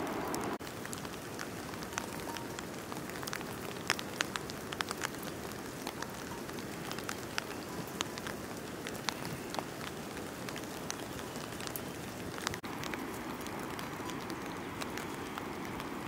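Light rain falling on grass and leaves: a steady soft hiss with many scattered sharp drop ticks.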